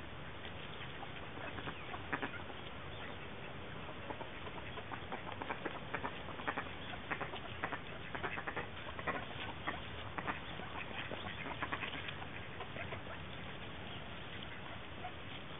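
A flock of eastern spot-billed ducks feeding on the ground. Their bills make a patter of quick clicks and nibbling sounds, thickest through the middle, over a steady background hiss.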